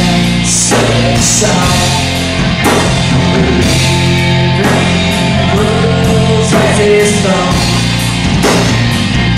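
Live rock band playing: drum kit with hits about once a second over a steady bass line, with singing.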